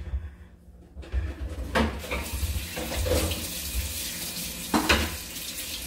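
Kitchen tap running into a sink, a steady hiss of water that starts about a second in, with a couple of knocks from something being handled in the sink.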